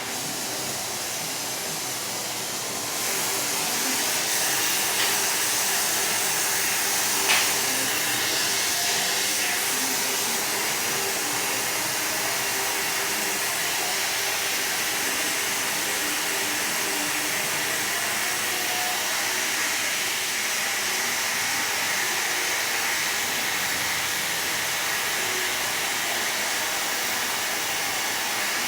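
Steady rushing hiss, like gas or air blowing, that grows louder about three seconds in and then holds steady, with a single sharp click a few seconds later.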